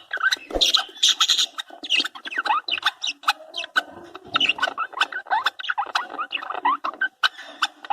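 Budgerigars chattering: a dense, continuous run of short, quick chirps and warbles gliding up and down in pitch, mixed with small clicks.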